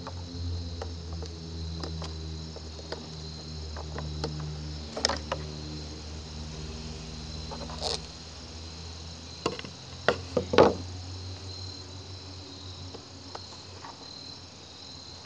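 Screwdriver and pick clicking and knocking against the plastic primer bulb and carburetor parts of a gas leaf blower as the bulb is pried out. The clicks are scattered, with the loudest cluster around ten seconds in, over insects chirping steadily and a low hum.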